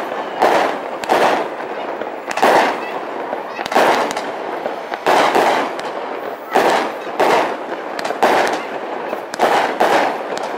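Aerial fireworks shells bursting overhead in a steady string of bangs, about one a second, each followed by a trailing rumble.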